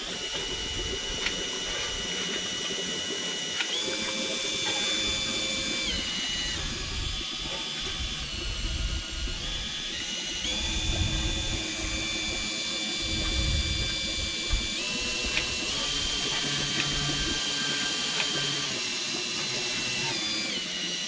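Cordless drill driving a drill-powered pump, sucking old oil out of a Nuffield tractor's axle housing. The motor whine steps up and down in pitch several times as the trigger is eased and squeezed, with a few light ticks.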